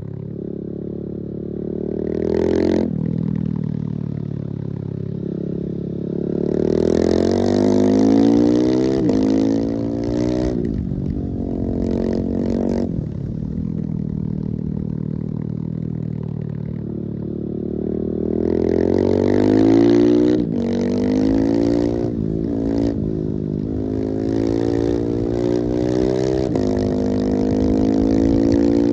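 Husqvarna 701's single-cylinder four-stroke engine accelerating hard at full throttle. Its pitch climbs again and again, broken by quick drops at each upshift, with a rushing hiss during the strongest pulls.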